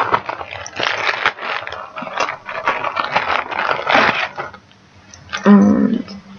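Clear plastic project bags and a folder being handled, crinkling and rustling for about four seconds, followed by a brief pitched sound about five and a half seconds in.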